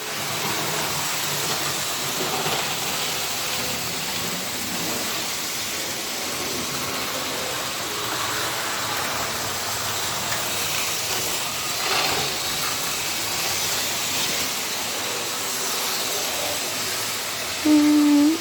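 Model train running on the layout: a steady whirr of the small motor and wheels on the track, with a faint hum. A short, loud, pitched tone sounds near the end.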